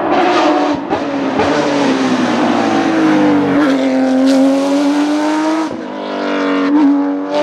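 Porsche 911 race car's flat-six engine at full throttle as it comes up, passes close and pulls away, with breaks in the engine note about every two seconds as it shifts gears.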